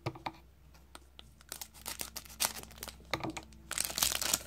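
Foil wrapper of a 2001-02 Topps Stadium Club hockey card pack crinkling and tearing as it is pulled open by hand, in scattered crackles that come thickest near the end.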